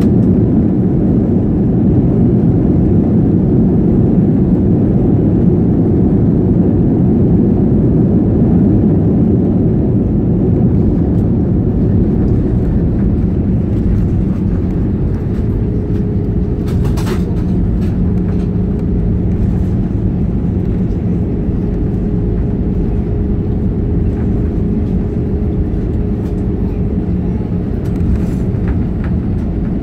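Airbus A320 landing roll heard inside the cabin: a heavy low rumble from the engines and the wheels on the runway, easing a little as the aircraft slows. A steady whine joins about halfway, and there is a single brief click soon after.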